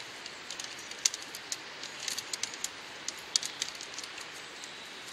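Willow rods clicking and rustling against each other as their tops are bent down and woven into a woven willow fence: a scatter of sharp, irregular clicks, the loudest about a second in and just after three seconds, over a steady background hiss.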